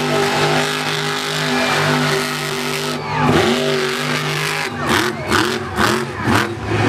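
Monster truck engine running at a steady pitch, then revved up and down about three seconds in. Near the end it is blipped in quick surges, about three a second.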